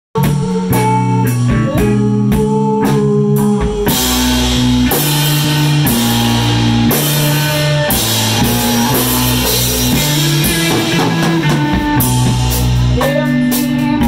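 Live rock band playing an instrumental intro on electric guitars and drum kit, with held guitar chords over a steady bass line. About four seconds in the drums open up with cymbals and the band plays fuller.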